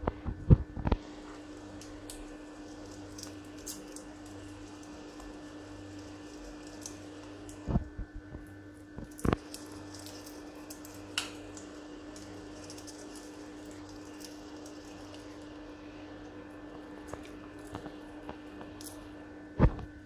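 An African grey parrot nibbling food held in its foot: faint small crunching ticks, with a few louder sharp clicks and knocks at the start, twice in the middle and once near the end, over a steady low hum.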